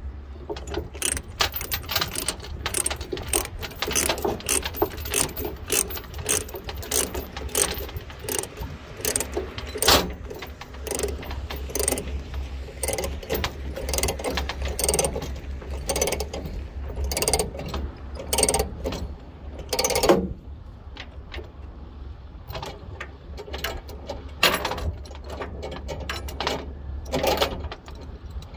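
Ratchet chain binder being cranked to tighten a steel transport chain: quick ratcheting clicks with chain links clinking. The clicking is dense for about the first twenty seconds, then thins to a few separate clanks.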